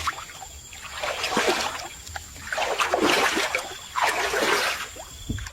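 Shallow muddy water splashing in several separate bursts.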